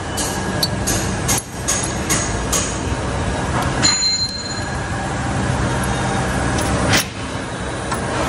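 Metal clinks and knocks of a brake caliper bracket being handled and offered up to the steering knuckle, several in the first few seconds and a sharper one near the end, with a brief high metallic ring about four seconds in. A steady low hum lies under it all.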